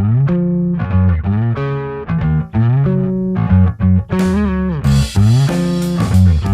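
Fender Japan E-serial Precision Bass played as a solo bass line, a run of plucked low notes with slides between some of them. The notes turn brighter with sharper attacks about five seconds in.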